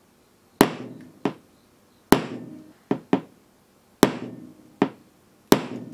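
Corner of a claw hammer striking a car windshield's glass: four sharp knocks about every one and a half seconds, each followed by a lighter tap, with a short ring after each. The glass is holding up, leaving only a couple of tiny chips.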